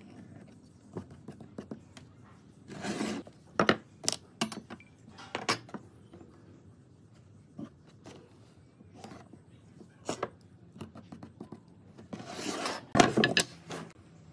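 Pine boards being handled on a wooden workbench: scattered knocks and clacks as pieces are set down, with two longer scraping slides of wood across the bench, one about three seconds in and a louder one near the end.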